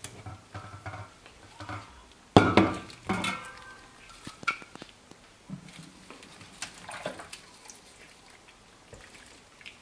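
Stainless steel cooking pots being handled and set down on a kitchen counter. There is a loud metal clank with a ringing tail about two and a half seconds in, a second knock just after, then lighter clinks and knocks.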